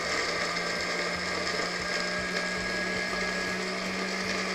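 Countertop blender motor running steadily, blending scoops of ice cream with milk into a thick milkshake, with a steady hum under the whirring.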